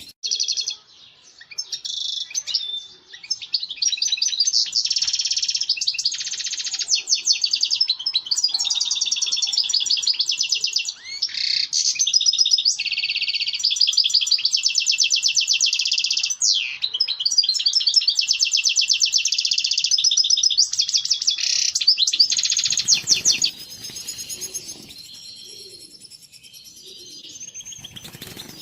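European goldfinch singing its courtship song: a long, unbroken run of fast twittering, trills and chirps, fainter over the last few seconds.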